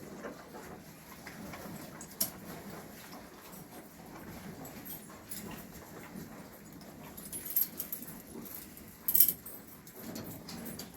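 Dairy barn at cattle feeding time: the low shuffling and stirring of cows at their feed, with a few short sharp knocks, the loudest about nine seconds in.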